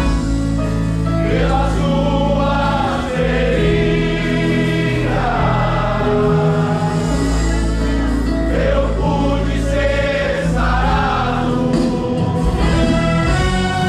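Gospel choir singing over a steady, sustained instrumental accompaniment.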